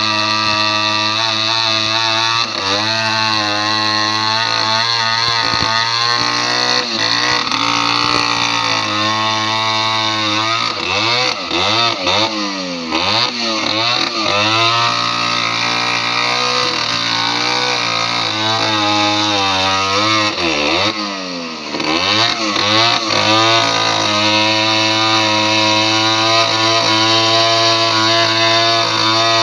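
Two-stroke chainsaw engine running steadily, its pitch rising and falling several times near the middle as the throttle is worked, then settling back to a steady run.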